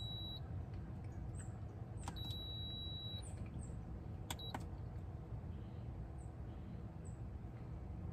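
Electric rice cooker's control panel beeping as its buttons are pressed to start cooking: a click and a high beep of about a second about two seconds in, then another click and a short beep a little after four seconds, with the tail of an earlier beep at the very start.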